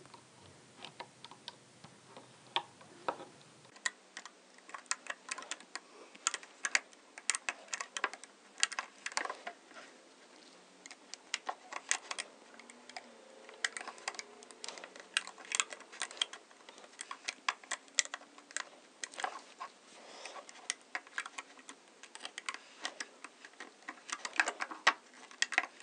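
Irregular small clicks and taps of a plastic Rainbow Loom hook working rubber bands off and over the plastic pins of the loom, several a second.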